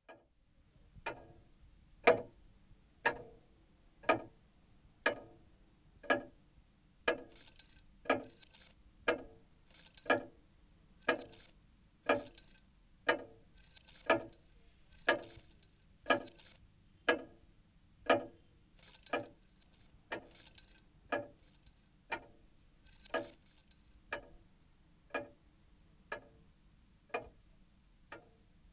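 Clock ticking steadily, one sharp tick about every second, the ticks growing fainter toward the end.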